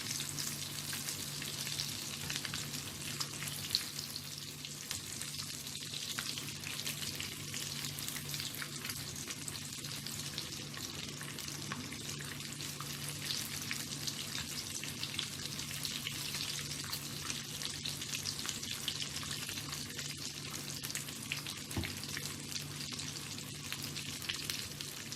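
Breaded fish fillets frying in hot oil in a frying pan: a steady sizzle with dense, continuous crackling, over a steady low hum.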